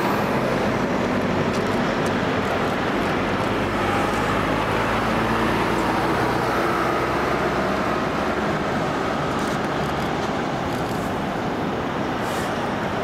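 Large fire-department trucks driving slowly past in procession, their diesel engines running steadily over the tyre noise on the road.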